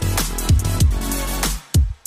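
Background electronic music with deep, booming kick drums over a sustained bass line; the music drops out briefly near the end.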